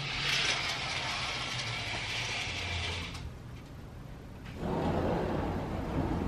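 Hotel room curtains drawn open with a curtain wand, the hooks sliding and rattling along the track for about three seconds. About a second and a half later a sliding glass balcony door is opened and a lower, steady rushing of outdoor noise comes in.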